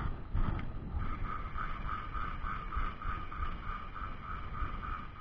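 Ultralight spinning reel being cranked to retrieve the lure, giving a light rhythmic tick about three times a second from about a second in, over a low rumble of wind on the microphone.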